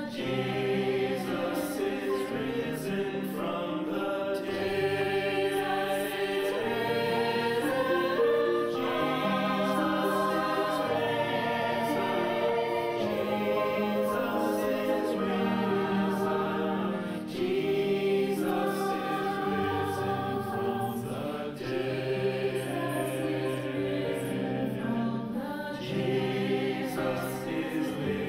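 Choral singing: several voices holding long notes with vibrato, moving slowly from chord to chord.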